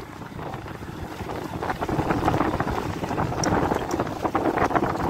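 Motorcycle running at low speed over loose riverbed stones, with many short knocks and clatters from the rough ground and wind buffeting the microphone.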